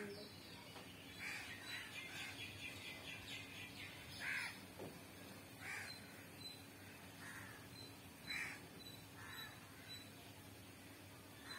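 Short bird calls repeating every second or so, about seven in all, over a faint steady hum.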